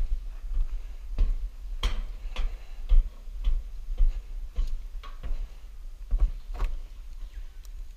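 Footsteps on wooden stair treads and walkway planks, sharp knocks at walking pace of about two a second, over a steady low rumble.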